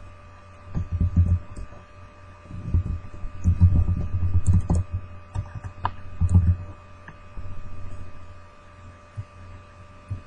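A woman burping: several low, rattling burps in separate bursts, the longest a couple of seconds, with a steady electrical hum underneath.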